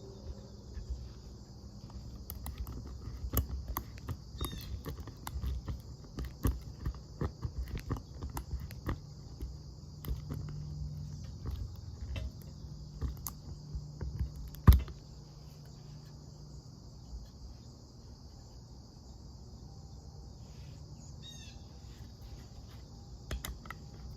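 Small clicks and knocks of a multitool's awl being worked into softwood, with one much louder knock about 15 seconds in, over a steady high chirring of insects.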